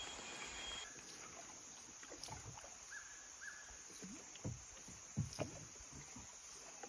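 Faint water plops and gurgles against the hull of a small boat sitting on the river, a few short blips at a time.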